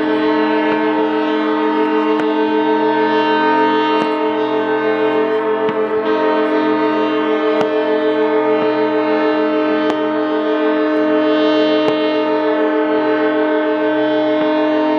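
Several ships' horns blowing long, steady blasts at once, their different pitches overlapping into a continuous chord. Sharp cracks of fireworks bursting sound over them now and then.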